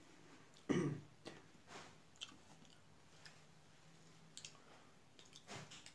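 Close-miked chewing and mouth sounds of a person eating rice and curry with his fingers. There is one loud smack about a second in, then scattered soft clicks and smacks.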